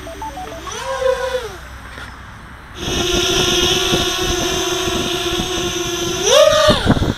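Brushless motors and 6-inch props of a mini quadcopter (Cobra 2208-1200Kv motors on 6S) spinning. A few short electronic beeps and a brief rev up and down come first. From about three seconds in there is a steady whine with propeller hiss, then a sharp rev up and back down near the end as the quad throttles up.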